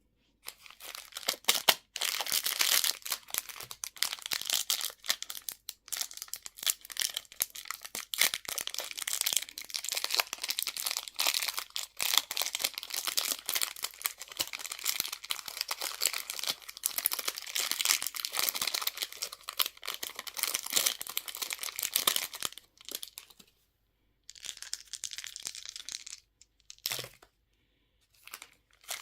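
Candy packaging being unwrapped by hand: a long stretch of dense crinkling and tearing of the wrapper, which stops about three-quarters of the way through, followed by a few short bursts of crinkling.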